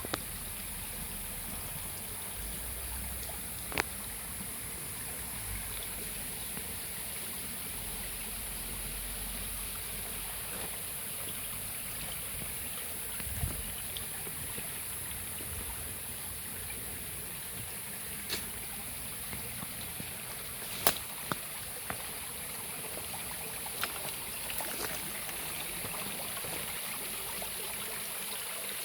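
Steady rush of a small stream flowing, with a few sharp clicks or knocks now and then.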